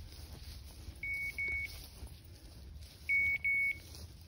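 Dog beeper collar on a hunting English setter sounding short electronic double beeps, twice, the second pair louder.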